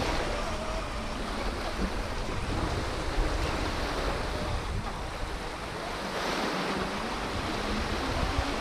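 Small waves washing steadily onto a sandy shore, with wind noise on the microphone.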